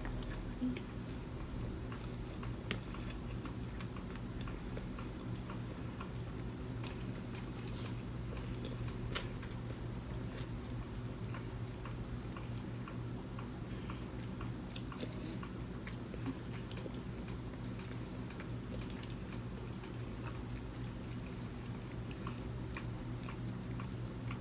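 Person chewing sushi, with soft, scattered mouth clicks over a steady low hum.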